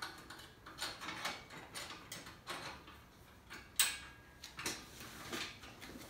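Metal clicks and clunks from a Logrite BTS hauler cart's handle being worked in its loose-fitting socket as it is pinned in place: a dozen or so separate knocks, the sharpest nearly four seconds in.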